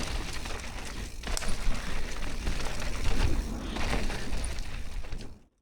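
Wind buffeting the action camera's microphone and a YT Capra mountain bike rolling fast over a dirt trail, with scattered sharp clicks and knocks; the sound cuts off abruptly near the end.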